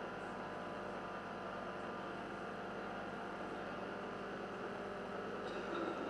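Steady electrical hum with a faint hiss: the room tone of a hall's sound system, with a faint short sound near the end.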